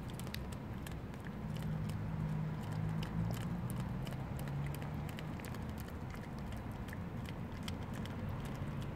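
A cat chewing and licking a treat off its pouch: a quick, irregular run of small wet clicks. Underneath is a low hum, stronger for a few seconds starting about a second in.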